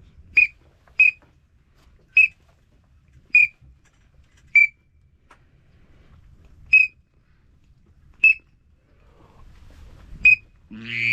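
Short, sharp, high single whistle notes, eight of them about one to two seconds apart, blown on a duck whistle call to bring in ducks. Near the end a louder, lower, rasping duck-call note starts.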